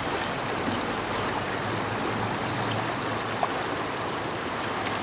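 Uncompahgre River rushing steadily, a constant even wash of water noise.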